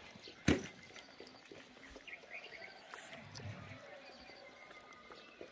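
Hmong native pig rooting in the soil with its snout, making faint rooting sounds. A single sharp knock comes about half a second in, and birds chirp faintly.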